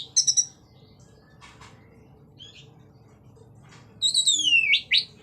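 Orange-headed thrush (anis merah) singing: a quick burst of high notes at the start, a few faint notes in the middle, then about four seconds in a loud whistled phrase that slides down in pitch and turns sharply back up.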